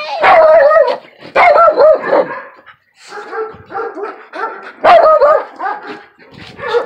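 Dog barking and yipping: long, loud barks near the start, about a second and a half in and about five seconds in, with a run of shorter, quicker yips between and after.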